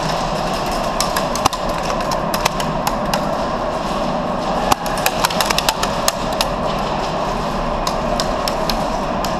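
Airsoft gunfire in a pallet-walled arena: scattered sharp cracks and knocks of shots and BBs striking wood, with a quick burst of them a little past the middle, over a steady background noise.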